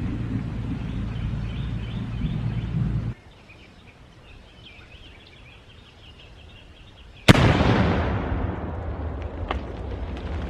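Tannerite, about 7 lb of binary exploding target, detonating on a jet ski: one sudden loud blast about seven seconds in, with a long rumble dying away and scattered sharp cracks after it. Before the blast, a steady low hum cuts off about three seconds in, leaving a quieter stretch.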